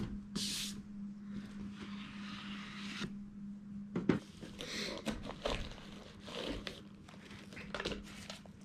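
Rustling, crinkling and scraping of the camera's packaging being opened and handled, with a sharp click about four seconds in. A faint steady hum runs underneath.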